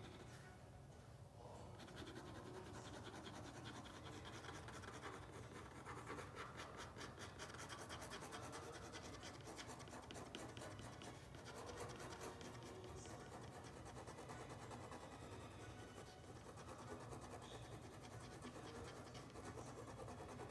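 Faint scratching of quick, repeated strokes on paper from a drawing or painting tool, over a steady low hum.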